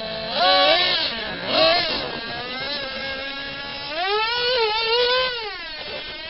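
Twin-engine Traxxas T-Maxx 3.3 nitro RC truck's small two-stroke glow engines running at a high pitch and revving in bursts as the throttle is blipped: two short revs in the first two seconds, then a longer rev about four seconds in whose pitch wavers before dropping back.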